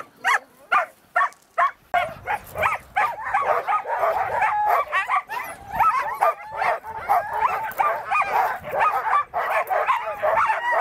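A team of harnessed sled dogs yelping and whining. The first two seconds are single sharp yelps; after that they merge into a continuous chorus of overlapping yips that slide up and down in pitch. It is the clamour of sled dogs eager to run.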